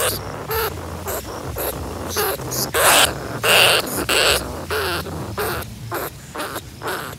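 A large rat moving about in a chicken-wire cage trap: a quick run of short, harsh bursts of noise, the strongest in the middle, over a steady low hum.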